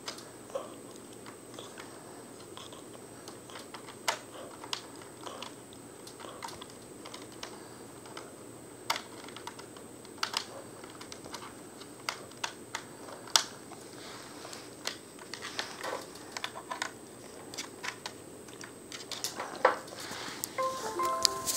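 Irregular light clicks and taps, like typing or fingers handling something close to the microphone, over a faint steady hiss and a thin high whine. Near the end comes a short run of stepped beeping notes.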